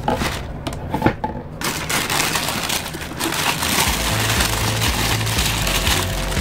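Tissue paper rustling and crinkling as it is pulled back from a pair of sneakers in a cardboard shoebox, after a few short knocks from handling the box in the first second or so.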